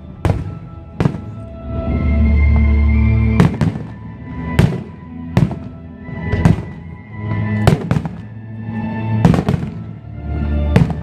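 Aerial fireworks shells bursting, a dozen or so sharp booms about a second apart, some in quick pairs and triples, over music with long held notes.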